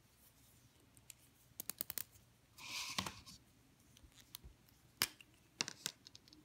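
Small plastic clicks and taps from a plastic water brush pen being handled, twisted and its brush tip screwed onto the barrel, with a short scraping rustle about three seconds in.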